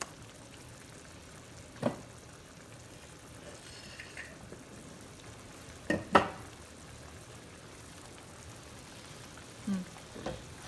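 Thick tomato-and-cashew shahi paneer gravy with milk simmering in a pan, bubbling steadily as it thickens. A few sharp knocks of the wooden spoon against the pan break in, the loudest a close pair about six seconds in, and stirring starts near the end.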